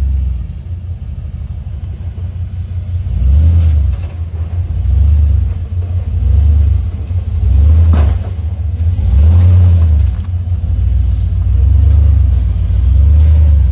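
Rock-crawling Jeep's engine working in a low rumble, swelling and easing about every second or so as the throttle is fed in and let off to climb a rock ledge. A single sharp knock about eight seconds in.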